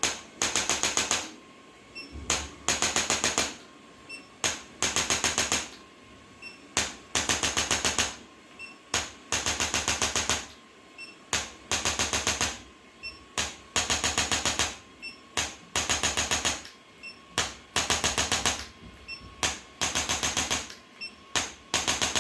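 Handheld percussive chiropractic device tapping in bursts of rapid mechanical clicking, each burst about half a second to a second long and repeated every second or two.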